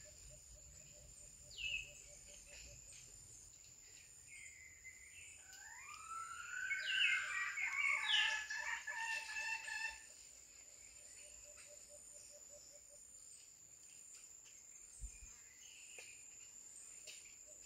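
A rooster crowing about six seconds in, one call lasting a few seconds with a rising start, over a steady thin high insect buzz.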